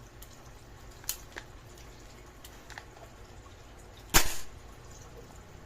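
A few faint clicks, then one loud, sharp crack about four seconds in.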